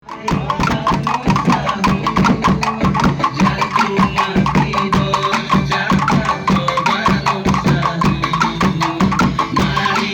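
Music with fast, steady percussion: drums and a wooden knocking beat over pitched instruments.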